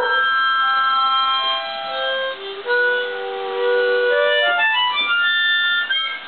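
Harmonica playing held chords that step down in pitch over the first few seconds, then climb back up in quick steps near the end.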